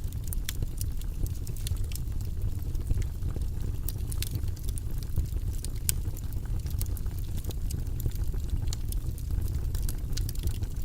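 Fire crackling in a fireplace: irregular sharp snaps and pops over a steady low rumble of the flames.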